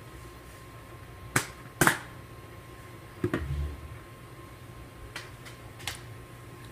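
Sharp clicks and taps: two loud ones close together about a second and a half in, a knock with a dull thump a little past three seconds, and three fainter clicks near the end, over a faint steady hum.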